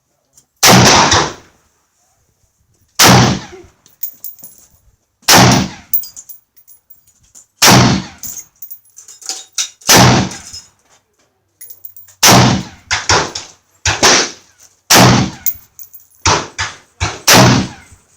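AR-15 rifle shots fired one at a time, at first about every two and a half seconds, then closer together from about twelve seconds in, with some quieter shots in between.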